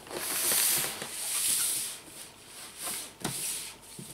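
Cardboard rubbing and scraping as a shipping carton is opened and a boxed router is slid out of it: two long swishing scrapes, then a short knock about three seconds in.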